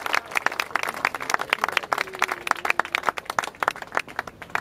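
A group of people applauding, many hand claps at a quick, uneven pace that thin out and stop near the end.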